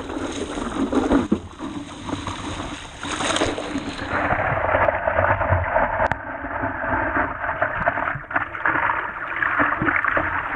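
Water rushing, gurgling and splashing around the nose of a 12'6 scow-nosed downwind stand-up paddleboard as it runs over sea chop, mixed with the splashes of paddle strokes.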